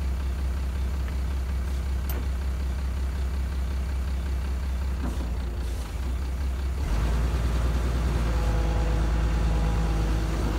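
Diesel engine of a Link-Belt 3400 excavator running steadily. About seven seconds in it gets louder, and a steady higher whine joins the low drone.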